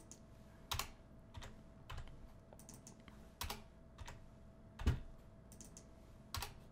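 Computer keyboard keystrokes and clicks, irregular and about one a second, as kernel values are typed into a form. The loudest stroke comes a little before five seconds in. A faint steady hum runs underneath.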